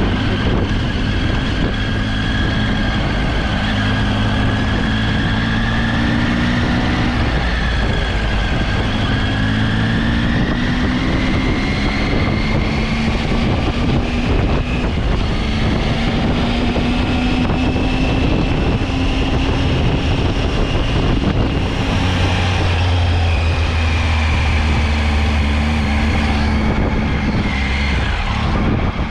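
Motorcycle engine running while riding, its pitch rising and falling with the throttle, over steady wind rush on the action-camera microphone.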